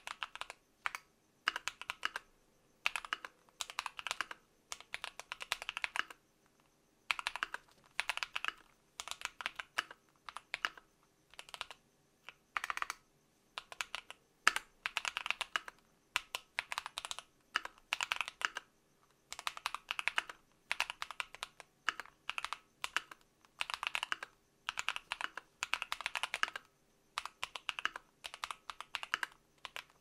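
Typing on a custom-built Keychron Q1 aluminium mechanical keyboard with lubed Akko Purple Lavender switches over a PE foam layer: rapid keystrokes in word-length bursts with brief pauses between.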